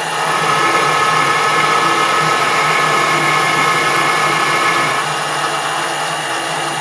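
Metal lathe running under power on a thread-cutting pass: a steady machine hum with a whine in it that stops about five seconds in.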